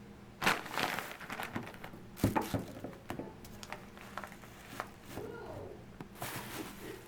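Plastic grocery bag crinkling and rustling as items are rummaged out of it, with irregular crackles and a light knock a couple of seconds in.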